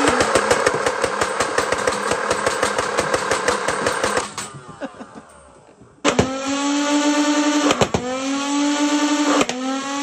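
Nerf Rival Nemesis flywheel blaster, run on a homemade 9.6-volt NiMH pack, firing a rapid full-auto burst: a steady motor whine under a fast stream of clicks, then the flywheels winding down with a falling whine about four seconds in. About six seconds in, a Rival blaster's flywheels hum steadily again, with a few single shots clicking through.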